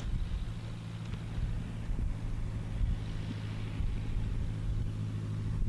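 Cirrus SR22 single-engine propeller plane's six-cylinder piston engine, heard from far off on the runway: a steady low drone, with a rushing sound building from about halfway through.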